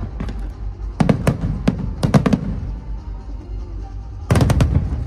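Aerial fireworks bursting in quick clusters of sharp bangs, about a second in, about two seconds in, and loudest near the end, over a steady low rumble.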